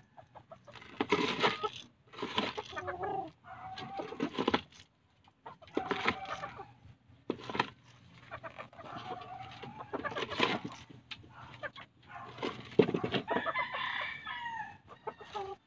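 Chickens clucking in a string of short calls, with a longer call about thirteen seconds in that sounds like a rooster crowing.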